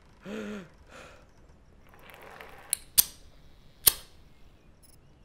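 Metal padlock on an ankle chain being worked with a key: three sharp clicks about two to four seconds in, with a rustle of handling before them. The lock does not open. A short vocal sound comes near the start.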